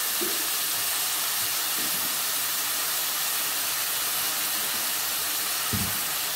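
Chopped onions, tomatoes and green chillies sizzling steadily in oil in an aluminium kadai, with a soft low thump near the end.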